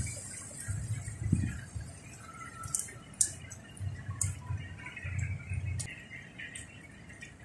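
Outdoor ambience with faint bird chirps, a few low thumps and several sharp clicks near the middle.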